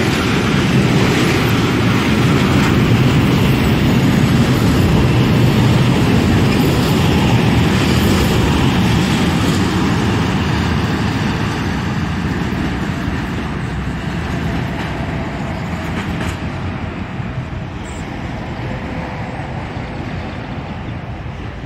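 Freight train running past on the rails, the wagons' wheels rolling over the track, loudest a few seconds in and then fading steadily as it moves away.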